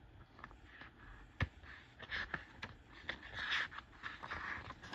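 Picture book being opened and its pages turned by hand: soft paper rustling and sliding with scattered light clicks, one sharper click about a second and a half in.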